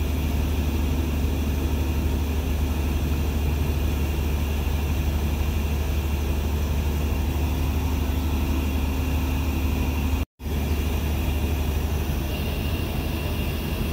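Diesel locomotive of a stationary passenger train idling with a steady low drone, heard through an open carriage door. The sound drops out for an instant about ten seconds in.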